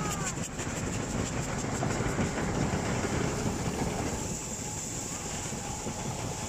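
Two coupled steam locomotives passing at close range: hissing steam and exhaust with the rumble of running gear on the rails. The hiss thins out about four seconds in as they draw away.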